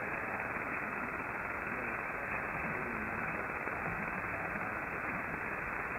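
Medium-wave radio reception on 917 kHz in lower-sideband mode through a software-defined receiver: a steady static hiss, narrow and muffled with nothing above about 2.7 kHz. A weak, distant broadcast station lies barely above the noise.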